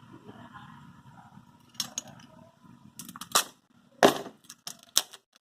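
Hands working at a smartphone's retail box and its packaging to get it open: a run of sharp, irregular clicks and knocks, the loudest about four seconds in.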